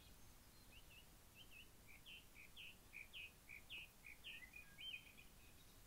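A songbird singing faintly: a quick run of short chirps, about three a second, alternating slightly higher and lower notes, lasting about four seconds.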